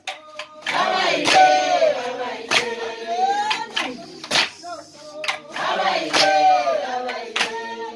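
A group singing together, voices sliding up and down in pitch, with sharp claps roughly once a second.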